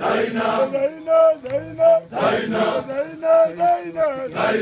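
A group of Tanzanian mountain porters, mostly men, singing a welcome song together in chorus, with phrases rising and falling and some notes held.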